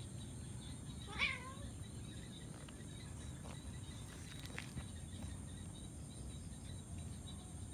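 A domestic cat gives one short meow about a second in.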